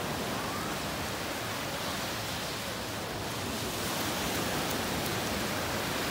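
Steady wash of small surf breaking on a sandy beach, an even rushing noise.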